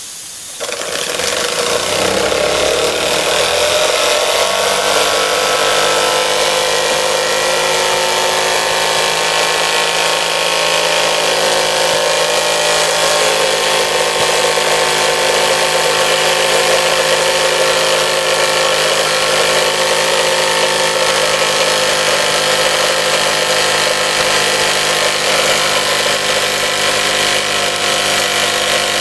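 DM1 model two-cylinder steam engine starting as steam is let in. Its mechanical whir rises in pitch over the first few seconds, then settles into a steady high-speed run, spinning the flywheel and small dynamo generator.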